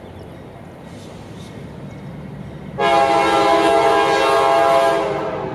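CSX diesel locomotive's air horn sounding one loud blast of about two seconds, starting about three seconds in, over the low rumble of the approaching train.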